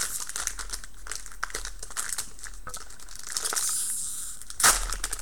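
Plastic wrapper of a trading-card pack crinkling and crackling as hands handle and open it, with one sharp knock about four and a half seconds in.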